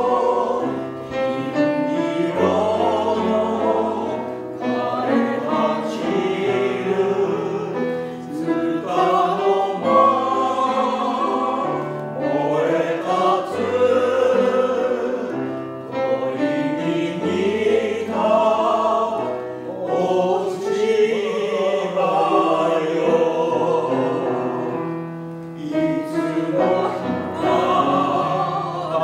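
Small mixed vocal ensemble of men's voices and a woman's voice singing a lyrical song in Italian bel canto style, accompanied on an upright piano.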